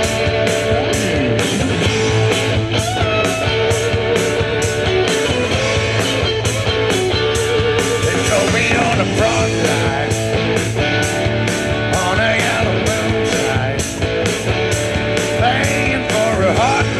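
Live rock band playing an instrumental passage: electric guitar over drums keeping a steady, even beat, with no vocals.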